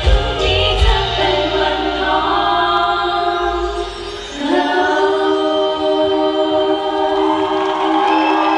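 A girl group singing together into microphones over a pop backing track with a beat. About four seconds in, the bass and beat drop away and the voices hold long notes over a sustained chord.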